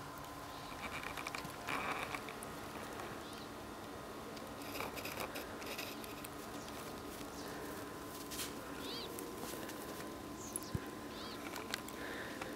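Soft patter and crunching of a small dog's paws moving through fresh snow, over a faint steady hum. Two short bird chirps in the second half.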